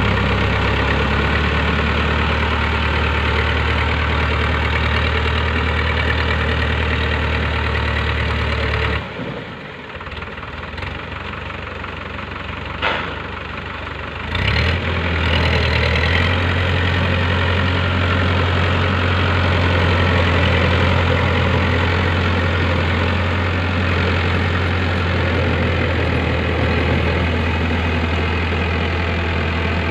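Powertrac Euro 55 tractor's diesel engine running steadily with a low drone as it drives a rotavator through a flooded paddy field. About nine seconds in, the sound drops quieter and more distant for a few seconds, with one sharp knock, then comes back to full strength.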